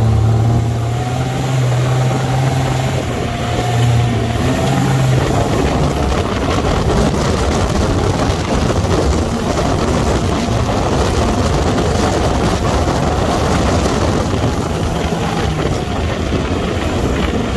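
Open sandrail driving over sand dunes: its engine runs with a steady note for the first few seconds, then a dense rush of engine and wind noise as the buggy drives on.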